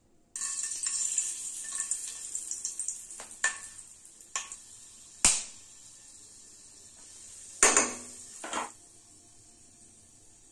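Whole spices (cloves, a cinnamon stick and peppercorns) hit hot oil in a kadhai and start sizzling at once, loud and crackling at first, then dying down over a few seconds. A few sharp metal clinks against the pan follow, the loudest about five seconds in and near eight seconds.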